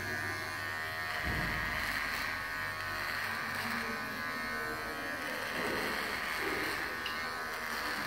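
Electric hair clipper buzzing steadily as it is run through a long beard, cutting it off.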